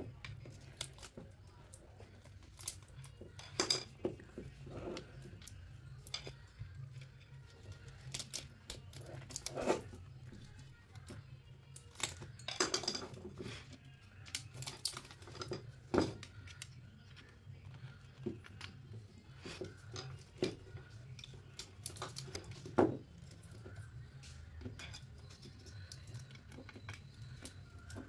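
Irregular metallic clicks, taps and scrapes of a screwdriver and a steel rod levering against the laminated steel stator and copper winding of an air-conditioner compressor motor, prying the winding loose from the slots.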